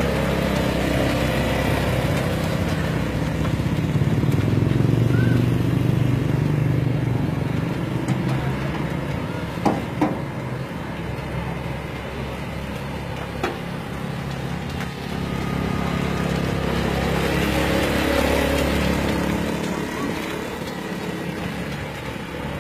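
A 150 cc single-cylinder four-stroke ATV engine with automatic transmission running while the quad is ridden around. It grows louder as it comes near, about four to seven seconds in and again around eighteen seconds, and is fainter in between. A few sharp clicks come around ten seconds and again a few seconds later.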